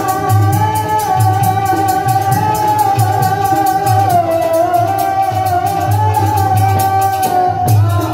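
Live Punjabi folk music through a PA system: a long held melodic note that wavers slowly in pitch, over a drum beat and a quick, even percussion rhythm.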